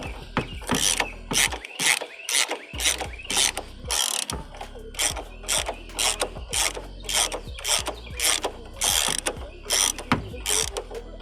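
Hand ratchet wrench worked back and forth in short strokes, its pawl clicking in quick bursts about twice a second as a bolt is turned.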